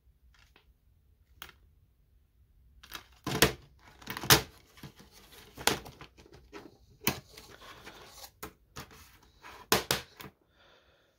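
Plastic DVD case and disc being handled: a run of sharp clicks and snaps with rustling between them. The two loudest snaps come about three and four seconds in.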